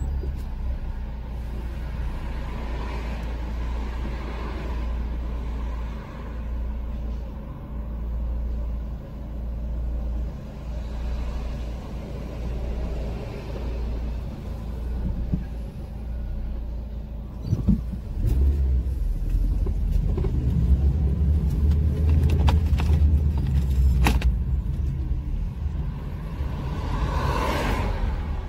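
Car cabin noise while driving: a steady low engine and road rumble that grows louder a little past halfway, with a few sharp clicks in the second half.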